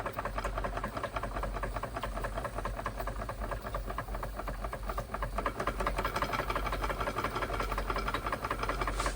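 Wilesco D32 model steam engine running steadily under steam, a rapid, even beat with a hiss of steam.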